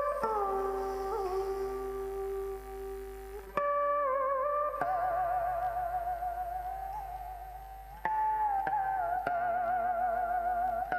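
Cải lương instrumental accompaniment: a plucked string instrument plays a slow melody of long notes with wide vibrato and small bends. New notes are struck about four seconds in and again about eight seconds in, each fading after it is plucked.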